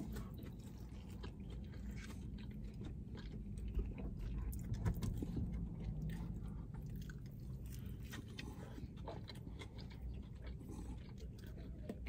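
Close chewing and biting of burgers: soft, irregular wet clicks and crunches over a low steady hum.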